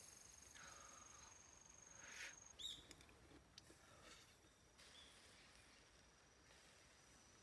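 Faint outdoor ambience with an insect trilling, one steady high note that breaks off about two and a half seconds in and comes back fainter later. A soft rustle and a couple of light clicks around two seconds in are the loudest sounds.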